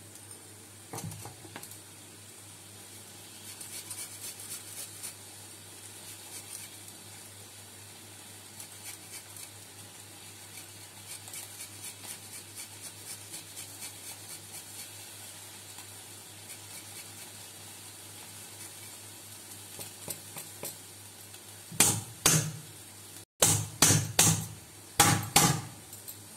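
Small hand grater scraping over a bowl in rapid, regular strokes, followed near the end by several louder sharp knocks, with a steady low hum underneath.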